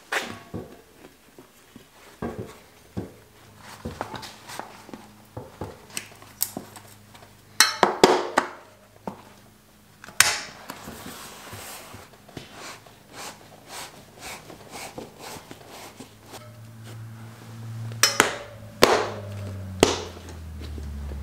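Knobby Continental Race King mountain-bike tyre being worked by hand onto a spoked wheel rim: rubber rustling and flexing, with scattered knocks and sharp slaps of the tyre against the rim. The slaps are loudest about eight seconds in and again near the end.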